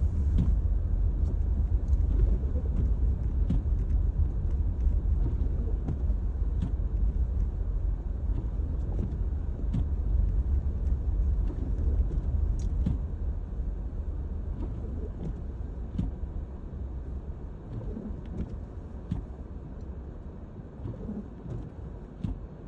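Low rumble of road and engine noise inside a small car's cabin while driving on a snowy road, with faint scattered ticks. The rumble eases off gradually over the last few seconds as the car slows.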